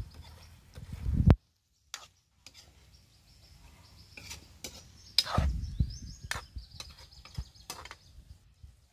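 A metal ladle clinking and scraping against a steel wok, with scattered knocks and heavier handling bumps, loudest about five seconds in.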